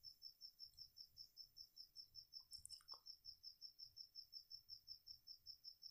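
Near silence, with a faint high-pitched pulsing that repeats evenly about five times a second.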